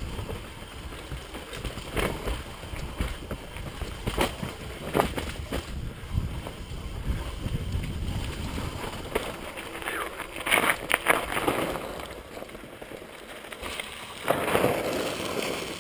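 Mountain bike descending a rough dirt trail at speed: tyres rumbling over the ground, the bike rattling with repeated knocks over roots and rocks, and wind buffeting the microphone. Near the end, a louder rush of tyre noise as it rolls out onto gravel.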